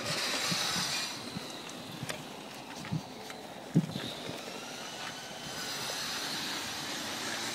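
Street traffic noise: a vehicle passes near the start and another swells up in the second half, with two short knocks in the middle, the second of them the loudest sound.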